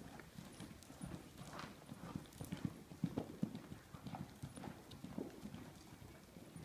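Welsh pony's hooves striking the soft sand footing of an indoor riding arena in a quick, steady run of dull thuds, several a second, loudest around the middle.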